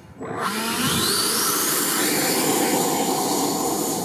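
Sebart Avanti model jet's electric ducted fan spooling up to full power: a rising whine starts about a third of a second in, climbs for about a second and a half, then holds as a steady high whine over a loud rush of air as the jet begins its takeoff roll.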